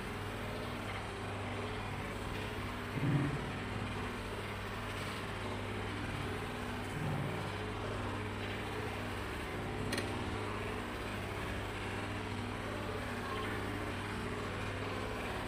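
A steady low mechanical hum over even hiss, with a couple of soft low knocks and one short click about ten seconds in.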